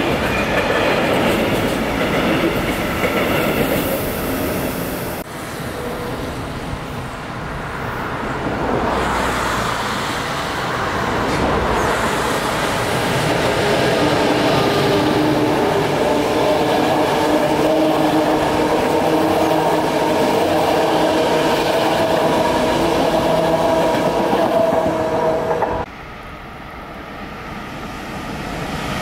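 Container freight train wagons rolling past on the rails. After an abrupt change, a DB class 101 electric locomotive hauling passenger coaches runs by with a steady whine over the wheel and rail noise. Near the end the sound drops suddenly to a quieter, growing rumble of a Talent 2 electric multiple unit approaching.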